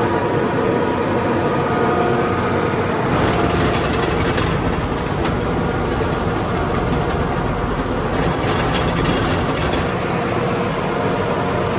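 John Deere 850 crawler dozer's diesel engine running steadily.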